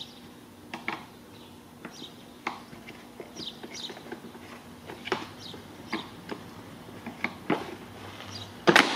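Screwdriver prying at the plastic clips that hold the grille into a Lincoln MKX's plastic front bumper cover: irregular clicks, scrapes and squeaks of plastic, with one louder knock near the end.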